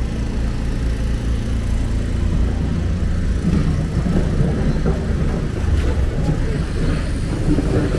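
Steady low engine rumble from a diesel wheeled excavator and passing street traffic at a road-works site.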